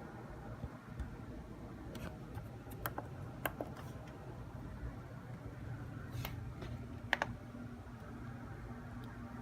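A handful of sharp, irregularly spaced clicks and taps over a steady low hum, with a faint steady tone coming in past the middle.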